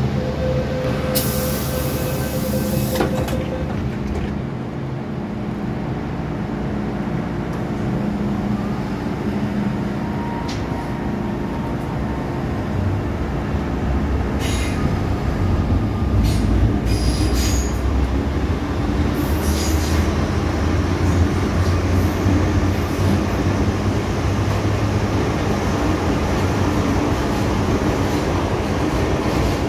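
MTR M-Train heard from inside the car as it leaves a station: a steady door-warning tone and the hiss of the doors closing end about three seconds in. The train's running noise then builds as it speeds up, with a few short high wheel squeals.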